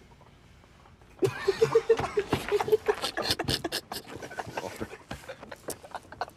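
A group of young men stifling laughter: after about a second of quiet, snickering and giggling break out, with a quick run of short high laughs and breathy bursts through covered mouths.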